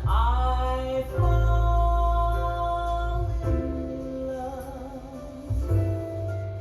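Recorded jazz ballad music played back through a Bluetooth receiver: slow held notes over a deep bass, changing chord every second or two.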